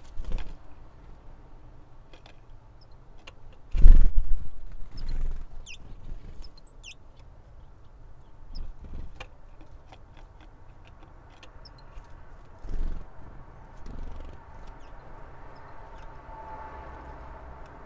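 Brief high chirps of a great tit scattered through the first half, among several dull thumps, the loudest about four seconds in. A faint steady hum comes in near the end.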